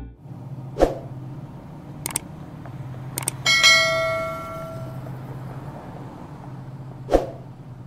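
Several sharp clicks and one bell-like ding that fades over a second or so, the sound effects of an animated YouTube subscribe-and-notification-bell button, over a low steady hum.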